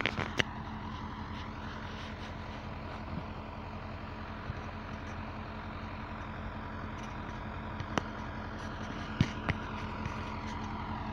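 Tractor engine running steadily, a low even drone with a few clicks toward the end.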